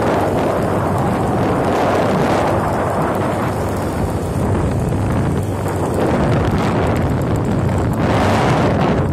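Heavy wind rumble buffeting the microphone of a moving motor scooter, with the scooter's engine running steadily underneath.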